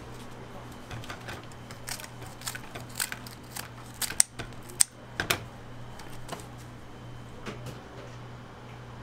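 Scissors snipping around the crisp edge of a freshly baked round waffle: a run of sharp snips and clicks, the loudest about four to five seconds in, over a steady low hum.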